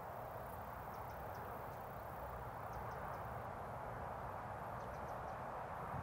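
Steady outdoor riverbank ambience: an even rushing hiss with a low rumble under it, and a few faint, short high chirps scattered through.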